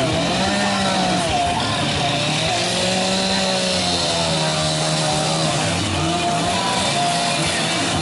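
Chainsaw running while carving wood, its engine pitch rising and falling again and again as the throttle is worked.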